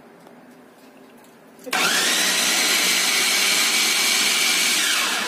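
Electric mini food chopper running briefly on banana chunks, chopping them coarsely. The motor whirs up quickly about a second and a half in, runs steadily for about three seconds, then winds down near the end.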